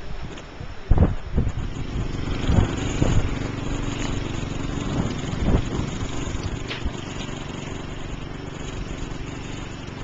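A motor vehicle's engine running steadily, with a few low thumps in the first few seconds.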